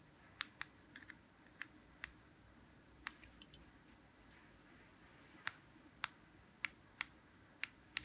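Small plastic push-buttons on handheld remote controls being pressed: about a dozen short, sharp clicks at irregular intervals, the loudest ones in the second half. The buttons are pressed on a four-button duplicator remote and a key-fob remote while the duplicator copies the fob's code.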